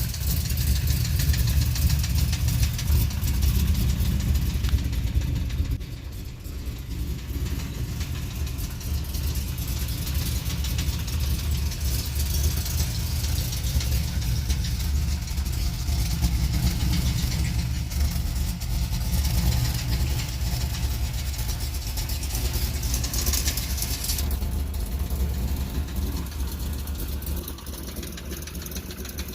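Camaro Z28's LS1 V8 with an aftermarket Comp Cams camshaft running steadily, with a knock from a spun connecting-rod bearing. It drops a little in loudness about six seconds in.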